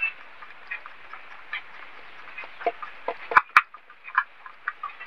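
Small irregular clicks and scrapes of screws being tightened by hand on the mains-cord guard of an electric air blower, with two sharper clicks close together about three and a half seconds in.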